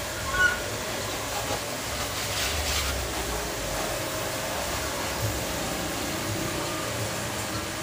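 Pressure washer running steadily while its water jet sprays a motorcycle, with a brief high chirp about half a second in.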